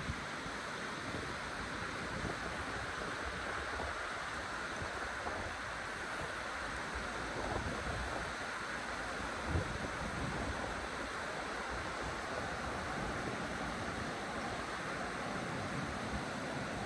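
Steady rush of flowing river water, with gusts of wind buffeting the microphone.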